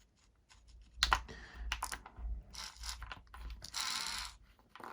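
Small clicks, taps and rustles of hands working wires and small parts on a workbench, with a longer scraping rustle about four seconds in.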